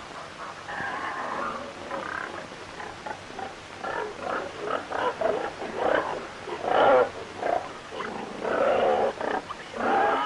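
Farmyard animals calling: domestic geese, then pigs grunting and squealing, in short, irregular calls.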